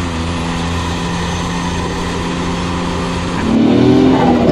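Modified kei truck engine running steadily, then getting louder and climbing in pitch as it revs up about three and a half seconds in.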